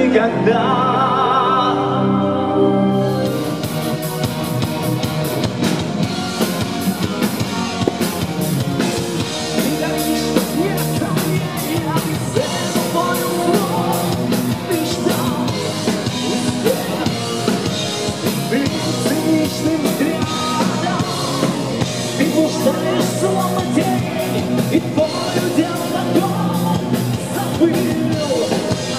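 Live rock band with a male lead singer. A quieter opening with a sung, wavering held note gives way about three seconds in to the full band: drum kit and electric guitar, with the singer singing over them.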